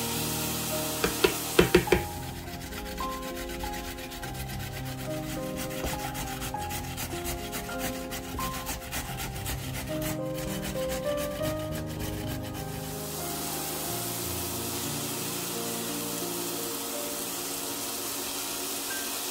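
A carrot rubbed fast against a stainless steel box grater, a dense run of rasping strokes for about ten seconds, after a few sharp knocks near the start. Later, a steady hiss of onions sizzling in a frying pan. Background music plays throughout.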